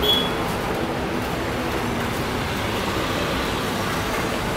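Airbus A320 jet engines running with a steady rumble and rush as the airliner rolls along the runway.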